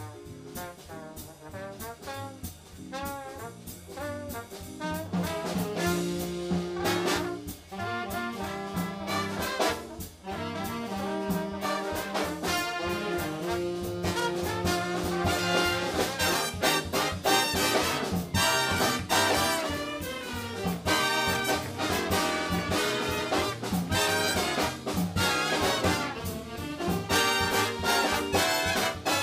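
Jazz big band playing swing: a trombone solo over the drums, then the full brass section comes in with loud held chords that grow louder about ten seconds in.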